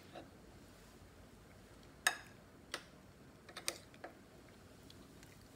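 Metal spoon clinking and scraping against a ceramic bowl while mixing food: a handful of sharp, scattered clinks, the loudest about two seconds in.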